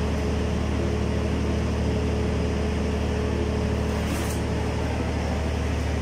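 Steady hum of a nearby running power generator's engine, an even low drone with a constant tone over it. A faint brief hiss about four seconds in.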